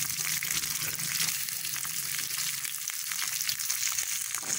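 Whole raw shrimp frying in hot oil in a wok: a steady sizzle with many small crackles and pops as the oil spatters.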